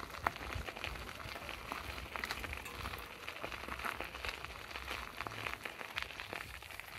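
Footsteps crunching on a gravel dirt lane scattered with fallen leaves: an even crackling hiss full of small irregular clicks.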